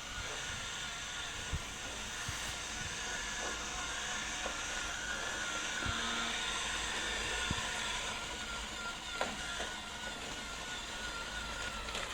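Robot vacuum running: a steady whirring hiss with a faint wavering whine, and a few light knocks along the way.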